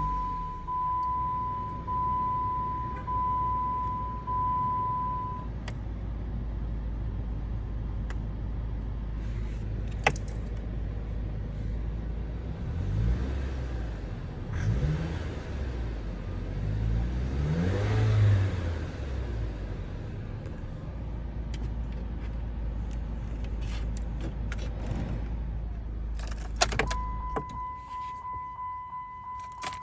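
Jeep Compass warning chime dinging repeatedly, then the engine running steadily with a few revs in the middle. Clicks near the end, then the chime starts again.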